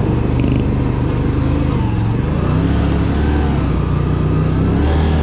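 ATV engine running under way, its pitch dropping and rising as the throttle changes.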